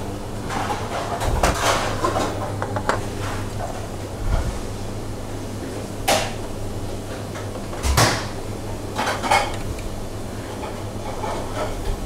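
Scattered light knocks and clinks of utensils and dishes on a stainless-steel kitchen counter, the sharpest about six and eight seconds in, over a steady low hum.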